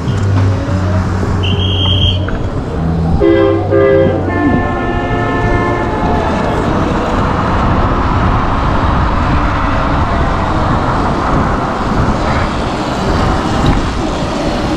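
A horn sounds twice, a short blast about three seconds in and a longer one about a second later, over a low hum. Then the steady rush of wind and road noise from riding fills the rest.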